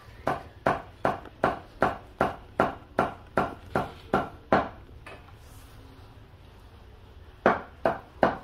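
Repeated sharp knocks with a short ring, nearly three a second, stopping for about three seconds midway and then starting again.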